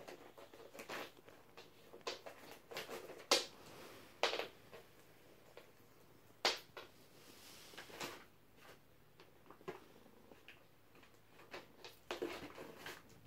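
A small cat playing on a laminate floor, batting at a small object and stepping onto a cardboard box. It makes scattered light taps and scrapes, with a few louder scuffs about three, four and six and a half seconds in.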